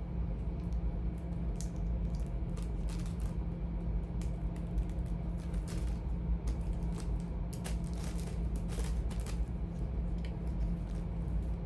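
Charging cords, plugs and earbuds being handled and sorted by hand: scattered light clicks and rustles, busiest about two-thirds of the way in, over a steady low hum.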